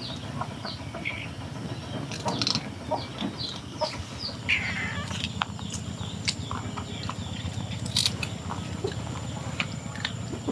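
Birds chirping: short, high calls repeated every half second or so over a steady low background noise, with a thin steady high tone coming in about four seconds in.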